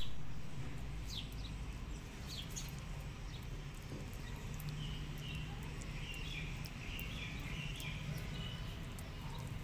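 Kitten eating wet cat food, a run of small wet smacking and chewing clicks, over a steady low background hum.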